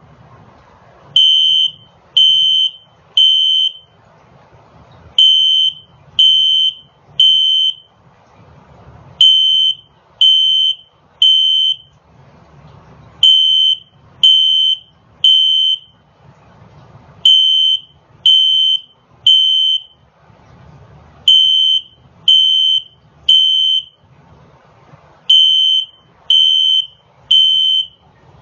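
Fire alarm sounding a high-pitched beep in repeating groups of three, about one beep a second with a pause of about two seconds between groups: the temporal-three evacuation pattern.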